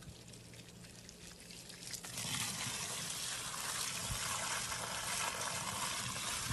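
Water pouring into the soil basin around a freshly planted date palm offshoot, its first flood watering. After about two seconds of faint background, it starts suddenly as a steady rushing splash.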